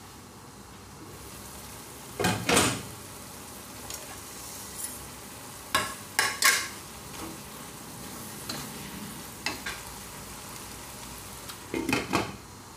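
Chicken and long beans sizzling steadily in a pot, broken by clatters of the glass lid being lifted off and set back on, and a spatula scraping and stirring through the food against the pot.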